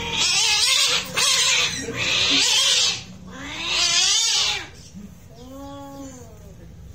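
Two cats fighting: three loud, long hisses with a growl running through them, then a quieter yowl that rises and falls near the end.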